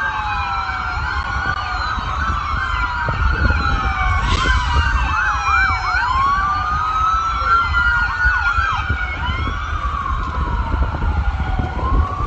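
Several emergency-vehicle sirens sounding at once, their wails sweeping up and down at different pitches, with a fast yelp of about three to four rises a second a few seconds in, over a steady low rumble.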